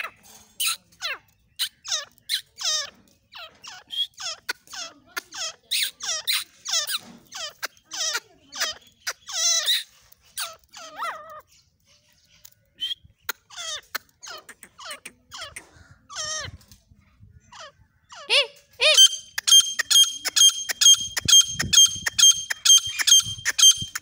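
Female grey francolin calling: short, sharp squeaky notes that drop quickly in pitch, one to three a second, with brief pauses. About two-thirds of the way through, a faster, even run of ringing notes, about three a second, takes over and is louder.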